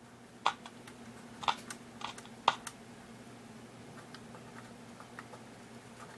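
Zenith K421W radio's AM-FM selector switch being worked back and forth: four sharp clicks in the first three seconds, then lighter ticks, with only a faint steady hum from the set and no station. The dirty selector switch is not making proper contact.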